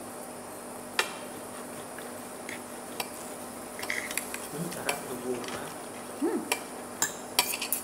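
Steel knife and fork clinking and scraping on a ceramic plate while a steak meal is cut and eaten: a few sharp clinks spread through, coming closer together near the end.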